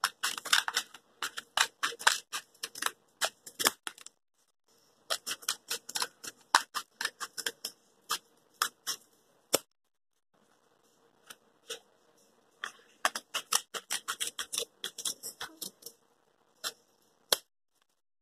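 Scissors snipping into a cardboard toilet paper roll: many short, sharp snips in quick runs, with a pause of about a second around ten seconds in.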